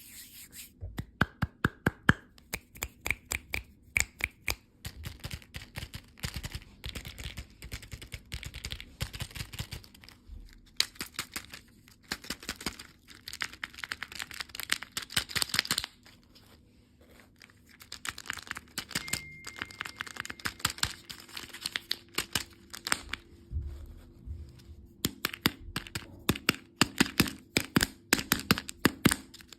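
Candy packaging being torn open and crinkled, in long runs of sharp crackles with a quieter pause partway through.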